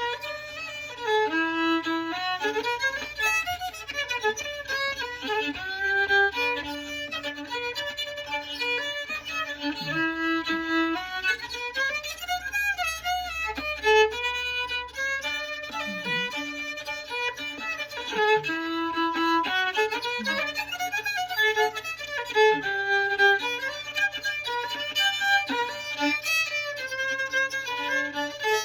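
Solo fiddle playing an old-time style tune in the key of G, a continuous run of quick bowed melody notes with runs up and down.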